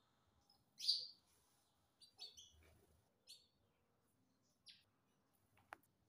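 Rose-ringed parakeet giving a few short, soft chirps spaced about a second apart; the first, about a second in, is the loudest.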